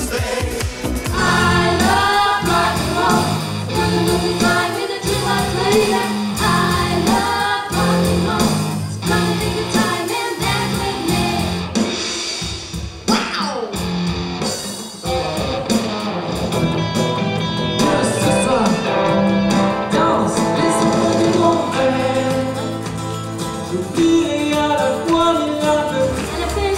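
Pop song played by a band with electric guitars and bass behind a lead singer.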